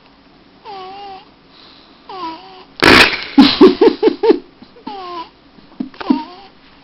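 Newborn baby snoring in her sleep: a short, pitched snore with a wavering pitch on each breath, about every second and a half. About three seconds in comes a louder noisy burst, then a run of quick pulses.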